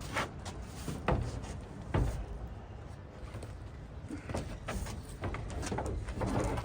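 Knocks and scrapes of storage-shed panels being handled and fitted together: a few sharp knocks in the first two seconds, then a run of lighter clicks and rattles.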